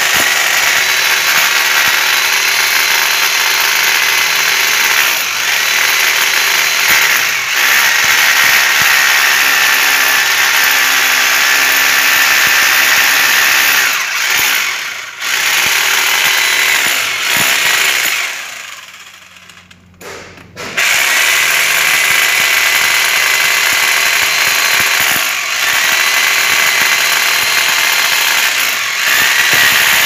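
Hammer drill running under load, boring a row of holes into a wall along a marked outline to cut an opening for a fan coil unit duct. It runs continuously with a steady whine, easing off briefly a few times and stopping for about two seconds a little past the middle before starting again.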